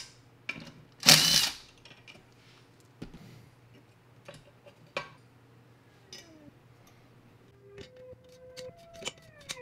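A cordless power tool runs for about half a second, about a second in, spinning off the 12 mm wastegate actuator fasteners on a BMW N54's Mitsubishi TD03 turbocharger. Light clicks and taps of metal turbo parts being handled follow, and faint music comes in near the end.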